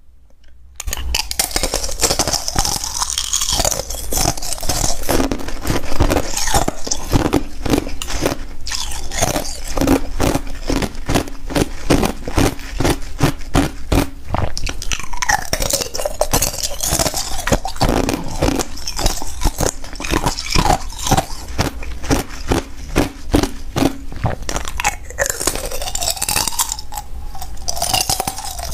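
Thin discs of ice being bitten and chewed close to a lapel microphone. From about a second in there is a rapid, continuous string of crisp cracks and crunches as the brittle ice shatters between the teeth.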